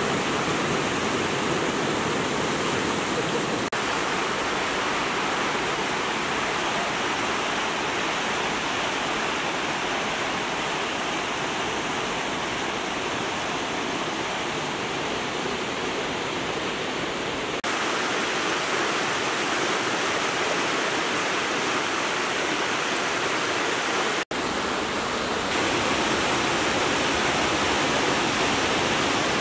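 Multnomah Creek rushing over rocks and a small cascade: a steady, loud wash of white water. Its hiss turns brighter about 18 seconds in, and it cuts out for an instant about 24 seconds in.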